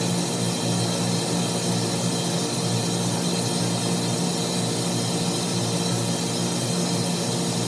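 Steady mechanical hum of plant-room machinery, a motor or pump running continuously with an even hiss.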